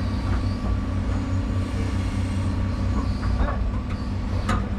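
Excavator engine running steadily, heard from inside the operator's cab as a low, even drone. A sharp knock sounds about four and a half seconds in.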